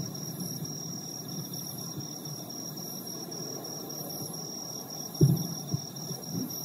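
Distant fireworks booming out of sight: a low thump about five seconds in, then a smaller one just after. A steady high trill of insects runs underneath.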